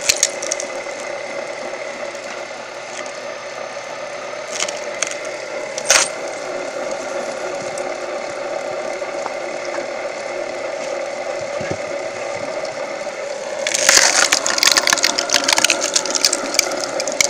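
Homemade firewood processing machine running with a steady hum, with a sharp knock about six seconds in. Near the end a burst of rattling and clattering begins.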